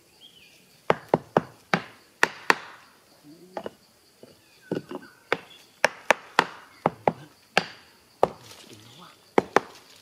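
A machete hacking into a dry, weathered tree stump: a run of sharp wooden chops at an uneven pace, sometimes two in quick succession.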